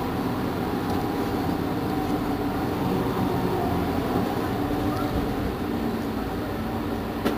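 Mercedes-Benz Citaro G C2 articulated city bus idling at a standstill: a steady engine hum at an unchanging pitch. A short click sounds near the end.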